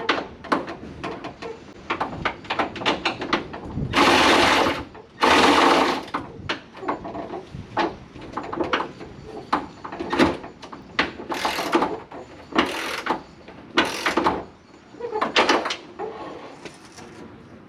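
Workshop handling noises of tools and car parts: an irregular run of clicks and knocks, broken by several short, loud scraping or rustling bursts about a second long, the biggest two a few seconds in.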